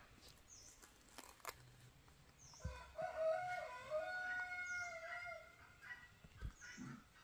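A rooster crowing once: a single long crow of about three seconds, starting a little under three seconds in.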